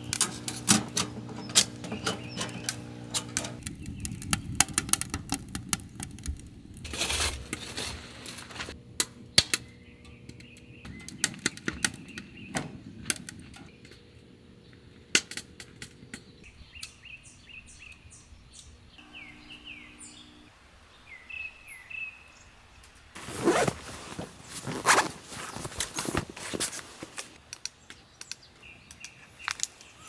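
Metal tongs and split firewood clicking and knocking against a small wood stove as logs are fed in. Around the middle, birds chirp in short calls. Near the end come bursts of rustling and handling noise.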